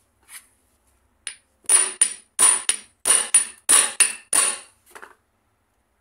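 Hammer striking the end of a gear shaft seated in a blind bearing packed with paper: a few light taps, then about ten sharp, ringing metal blows about three a second. The blows force the packed paper into the bearing bore so the pressure lifts the damaged bearing out of a scooter transmission cover.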